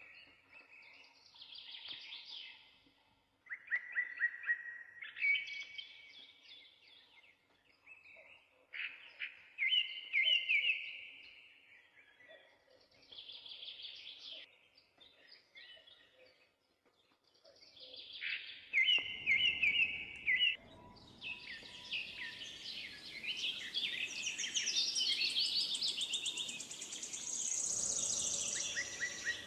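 Birds singing in separate bouts of chirps and trills, becoming a dense, continuous chorus about two-thirds of the way through, with a faint steady background noise underneath from then on.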